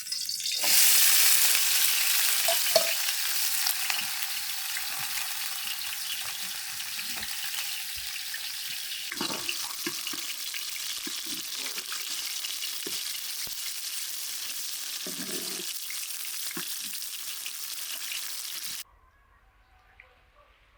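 Food frying in hot oil in a cooking pot: a loud sizzle that swells about a second in, then settles to a steady fry, with a few knocks of stirring. It stops abruptly near the end.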